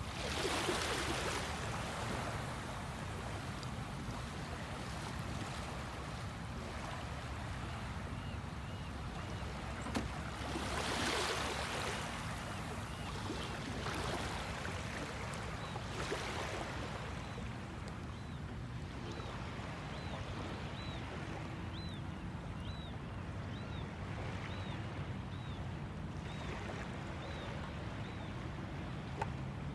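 Water splashing and rushing around a kayak, with several louder swishes of paddling, over a steady low rumble. In the second half a faint short high chirp repeats about once a second.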